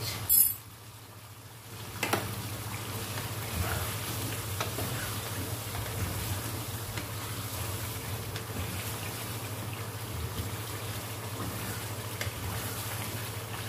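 Chicken in masala sizzling and bubbling in a karahi while a wooden spatula stirs it, with faint scrapes and light knocks against the pan, over a steady low hum. There are a couple of sharp clicks near the start, with a quieter stretch between them.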